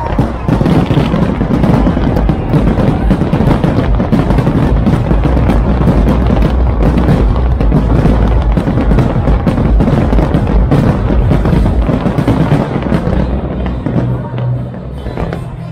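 Fireworks display in full barrage: many shells bursting and crackling in rapid, overlapping bangs, mixed with music with a deep bass. The barrage thins out and gets quieter near the end.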